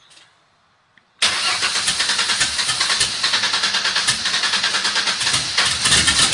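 Turbocharged V6 Mustang engine firing up on its first start: silence, then about a second in it catches suddenly and runs loud with a fast, uneven pulsing.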